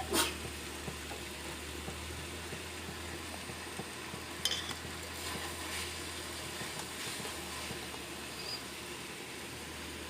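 A few light knocks and scrapes of a utensil against a bowl, one sharp click at the start and another cluster about halfway, over a steady low hum.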